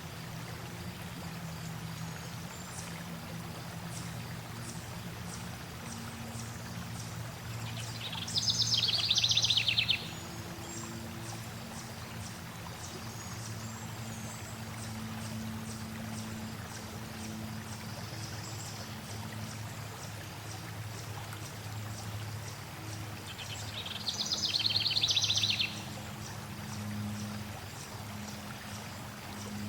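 Steadily flowing stream water with a songbird singing two loud, rapid trilled phrases of about two seconds each, the first about eight seconds in and the second in the last third, and faint high chirps in between.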